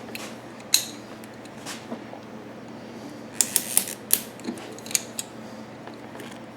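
Scattered small metal clicks and clinks of a hose clamp being handled and fitted onto a rubber fuel hose, with a quick cluster of clicks just past the middle.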